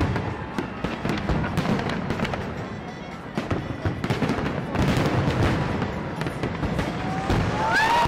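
Fireworks going off in quick succession, a dense crackle of many sharp pops, with music playing underneath. Near the end a pitched tone slides upward.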